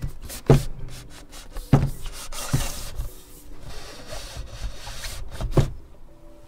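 Cardboard keyboard box being handled and opened: rubbing and sliding of cardboard against cardboard, with a few sharp knocks as the box and lid are set down and moved.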